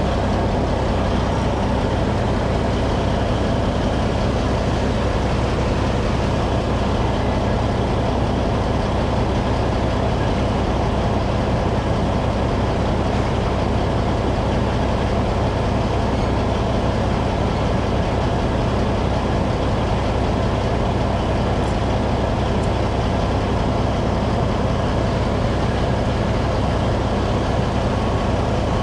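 Steady drone of heavy diesel engines at the asphalt milling job, heard from the dump truck's cab with the windows down, with a deep unbroken hum under a constant rumbling hiss.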